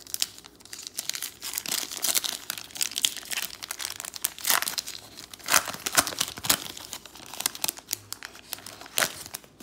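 Wrapper of a 2019-20 Panini Mosaic basketball trading-card pack being torn open and crinkled by hand: a run of irregular crackles and rips, with a few louder sharp crackles about halfway and near the end.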